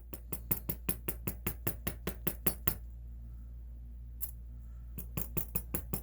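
Rapid, even metallic clicking from a gutted True Guard padlock being handled, about six or seven clicks a second. It comes in two runs, with a pause of about two seconds between them and a single click in the pause.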